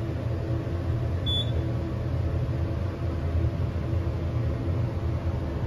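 KONE hydraulic elevator travelling up, heard from inside the cab: a steady low hum from the hydraulic pump as the car rises. A short high beep sounds about a second in.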